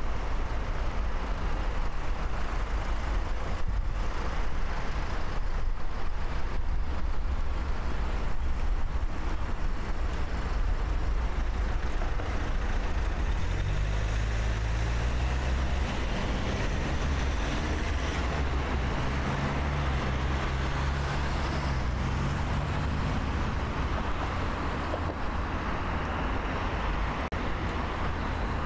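City street traffic: road vehicles driving past with a steady rumble of engines and tyres. From about halfway through, one vehicle's engine hum rises and falls in pitch as it moves by.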